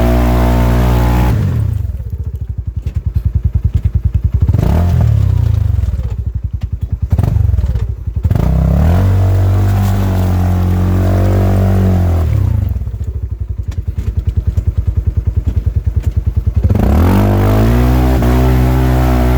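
A Polaris RZR side-by-side's engine running as the throttle is worked on and off. Its pitch climbs and falls, twice dropping back to a slow, pulsing putter before picking up again, the second time near the end.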